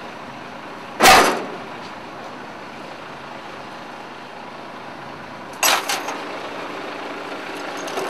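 Two loud bangs as pieces of a flatbed trailer's load are handled, one about a second in and one past the middle, the second followed by a few lighter knocks. Steady street and traffic noise runs underneath.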